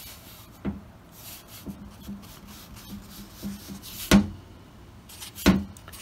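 Three sharp knocks from a tube and parts being handled on a workbench: one about a second in, the loudest about four seconds in, and one near the end, over a faint low hum.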